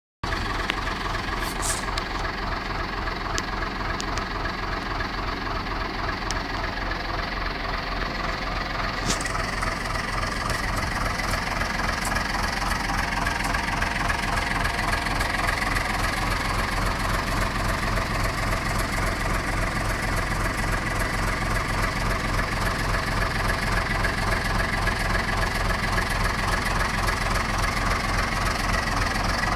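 1978 Bedford TK horse box lorry's engine idling steadily, getting a little louder in the second half.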